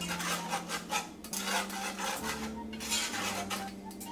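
Wire whisk stirring dry cocoa powder and sugar in a metal pot, its wires scraping and tapping against the pot in rapid repeated strokes.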